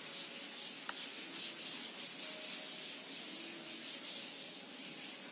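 Chalkboard being wiped clean by hand, a hissing rub in quick repeated back-and-forth strokes across the board, with a single sharp tick about a second in.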